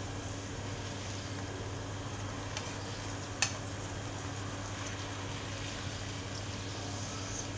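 Teriyaki sauce bubbling steadily in a nonstick wok as it reduces and thickens around pieces of chicken. Metal tongs give a sharp click against the pan about three and a half seconds in, with a fainter one just before.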